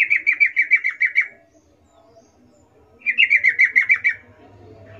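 Yellow-vented bulbul song: two rapid phrases of about ten quick falling notes each, the second starting about three seconds in.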